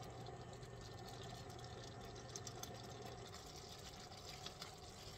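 Faint bubbling and small pops of aloe vera pulp simmering in olive oil in a pan, as the water in the pulp cooks off. A low steady hum stops about three seconds in.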